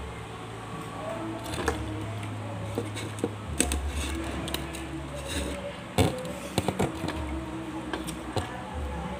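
Eating sounds: chewing with sharp clicks of fingers and food against a plate, the loudest cluster about six seconds in, over a steady low hum.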